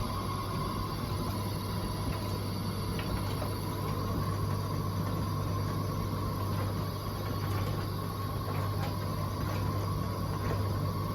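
Bosch Serie 4 WTN83200GB condenser tumble dryer running with a steady low hum and a steady high whine: the strange noise it is making.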